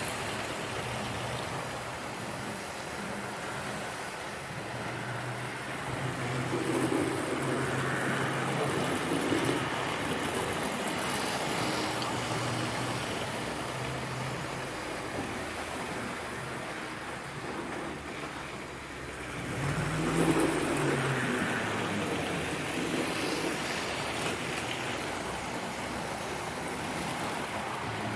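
Model railway train running around the track: the locomotive's small electric motor hums and the wheels rumble on the rails, getting louder twice as it passes close.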